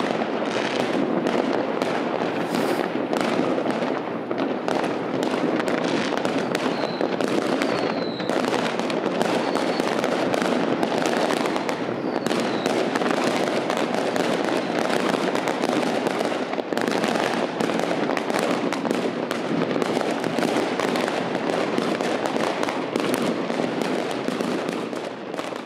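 Fireworks going off in a dense, continuous barrage of bangs and crackling. A few short whistles cut through between about seven and twelve seconds in.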